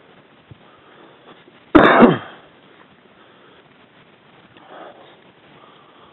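A person coughs once, loud and close to the microphone, about two seconds in, lasting about half a second.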